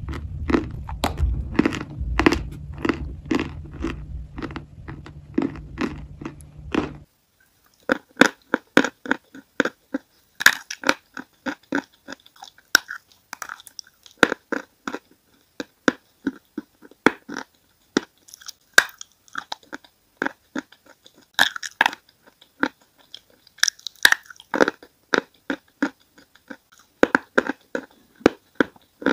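Close-miked crunching and chewing of pressed chalk pieces moulded like chocolate bars, crisp crunches coming a couple of times a second. A steady low hum sits under the chewing for the first seven seconds and stops abruptly, after which the crunches are sharper and more separate.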